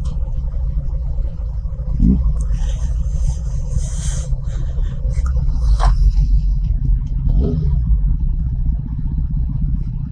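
Motorcycle in motion: a loud, steady low rumble of wind buffeting and engine from the moving bike, with a few brief sharper sounds about two and six seconds in.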